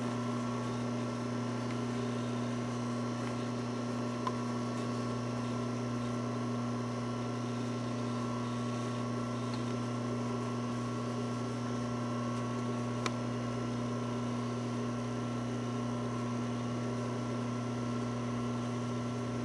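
Steady low electrical hum, with two faint ticks about four seconds in and again about thirteen seconds in.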